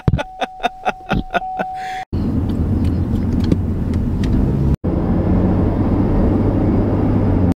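Car cabin noise while driving: a steady low engine and road rumble with tyre noise. In the first two seconds, before it, comes a fast, even ticking over a steady tone, about four ticks a second.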